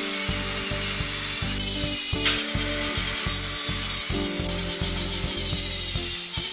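Angle grinder with a sanding disc running and rubbing against a curved hardwood handrail piece as it is sanded to shape.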